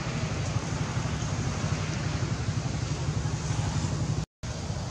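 Steady low rumble and hiss of outdoor background noise, cut off by a short dropout to silence about four seconds in.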